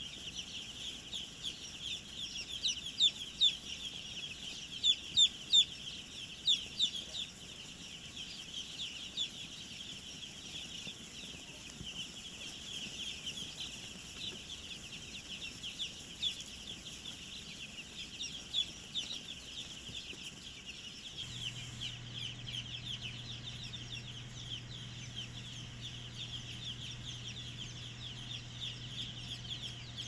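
A large flock of young chicks peeping together: a dense, continuous chorus of short, high, falling cheeps, loudest a few seconds in. About two-thirds of the way through, a low steady hum joins underneath.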